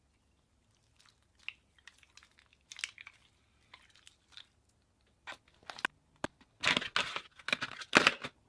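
Slime being squeezed and worked by hand, giving irregular sticky crackles and pops, sparse at first and then denser and louder in the last two seconds.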